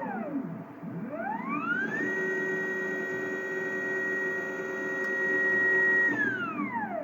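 Stepper motor driving the CNC-converted EMCO Compact 5 cross slide table: a pitched whine that falls as the motor slows to a stop about a second in, rises again as it speeds up, holds a steady note for about four seconds, then falls as it slows near the end.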